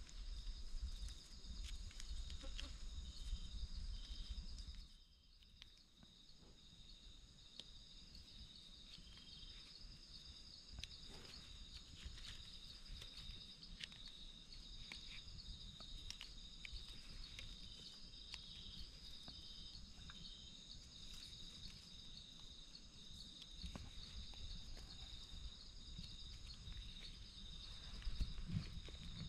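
A chorus of night insects chirring steadily in several high tones, one of them in short repeated pulses. Under it, a low rustle and scrape of gloved hands and a knife working the soil during the first five seconds and again near the end.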